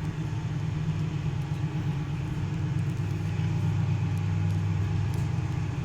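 A lift car travelling between floors, heard from inside the car: a steady low hum and rumble from the drive.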